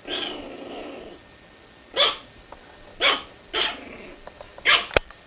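A dog barking: one longer drawn-out bark at the start, then about five short single barks spaced about half a second to a second apart.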